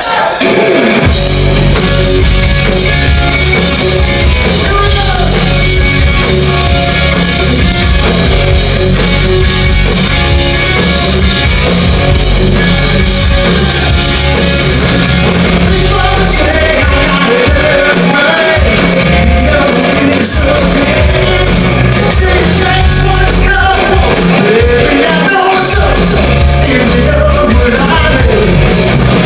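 Live hard rock band kicking in about a second in and playing loud: distorted electric guitar, bass guitar and drum kit, with a lead singer singing over them.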